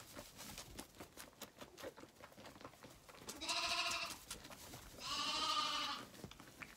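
Zwartbles lambs bleating: two long, quavering bleats, the first a little past the middle and the second about a second and a half later. Before them come quick soft clicks and rustles as lambs suckle at bottles in the straw.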